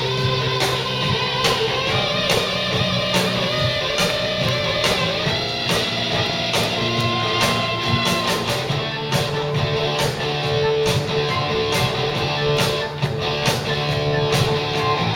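Rock band playing an instrumental passage: a wavering electric guitar lead line over bass and a steady drum beat.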